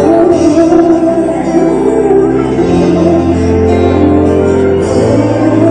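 Live slow pop ballad between sung lines: sustained keyboard chords over long held bass notes, changing every second or two, with a wavering sung note near the start.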